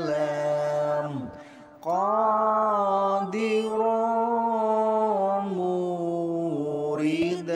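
A single voice chanting the Arabic names of Allah's required attributes in long, drawn-out melodic notes. It sings "Kalam", breaks off briefly about a second in, then holds a long "Qadiran".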